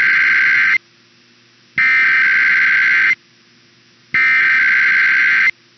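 Emergency Alert System SAME header data bursts of a Required Weekly Test: a loud, buzzy screech of rapid digital tones, each burst about a second and a half long with a second's pause between. The tail end of one burst is followed by two complete bursts.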